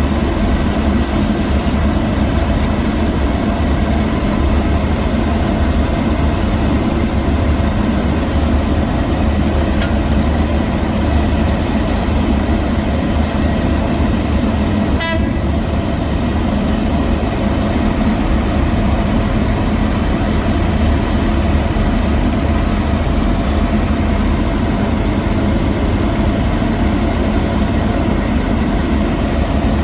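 Heavy road-paving machinery with diesel engines running steadily, loudest in the low end. There is a brief click about halfway through, and a faint high-pitched tone for several seconds in the second half.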